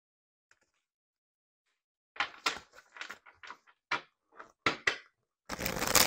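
Tarot cards being shuffled and handled: irregular snaps and taps start about two seconds in, ending in a longer dense rustle near the end.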